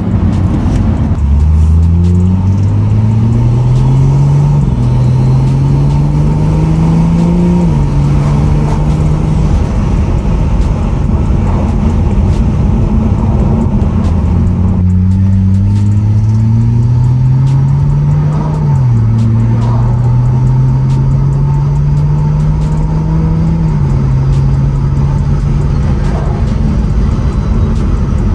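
BMW 335i's turbocharged N55 inline-six with a catless downpipe, heard from inside the cabin, pulling hard twice: the engine note climbs in pitch and falls back at each upshift, with steadier running in between.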